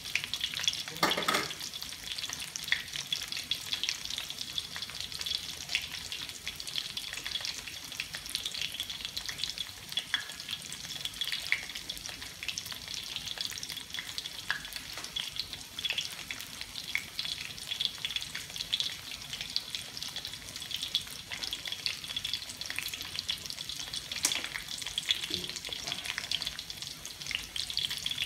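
Chunks of chicken deep-frying in hot oil in a steel wok: a steady sizzle with frequent small crackling pops.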